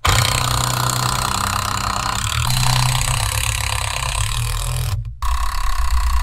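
DeWalt cordless drill driving a long screw through pallet boards, running steadily under load. It stops briefly about five seconds in, then starts again.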